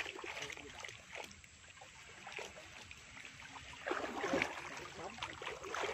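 Water splashing and trickling with small knocks, as muddy water is sloshed and poured out. Indistinct voices join from about four seconds in.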